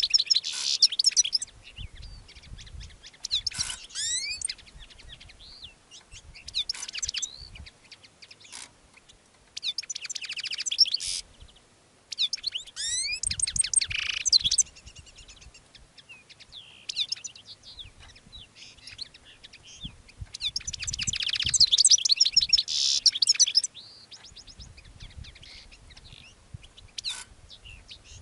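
Male European goldfinch singing to court a female: bursts of rapid, high twittering song, each one to three seconds long, with scattered single chirps in the gaps.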